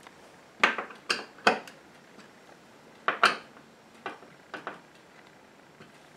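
Hand screwdriver clicking and knocking on the screws of a wooden coat rack as each screw is checked for tightness: a few short, sharp clicks, some in quick twos and threes.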